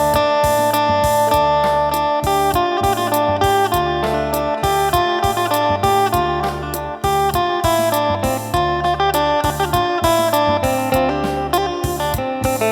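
Phin (Isan lute) playing a quick plucked melody over held drone notes, with a low pulsing rhythm underneath.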